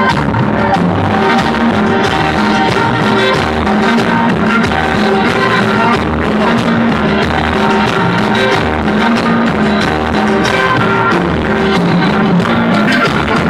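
Loud dance music played over a party sound system, with a steady beat.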